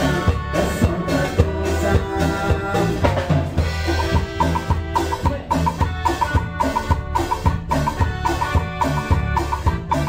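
Instrumental band music with a drum kit keeping a steady beat and a quick high riff of short notes repeating over it.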